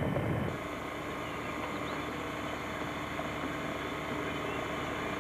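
Wind buffeting the microphone of a vehicle on a dirt road, cut off about half a second in; then a steady hiss with a faint low hum.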